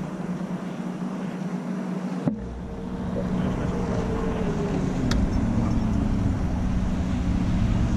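Boat motor running at idle with a steady hum, under a low rumble that gets louder after a brief dropout about two seconds in.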